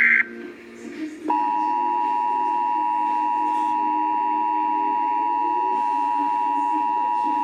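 Emergency Alert System broadcast: the last fraction of a second of a SAME data-header burst, a harsh digital screech. About a second later comes the steady two-tone EAS attention signal, which starts abruptly and holds at an even pitch and level.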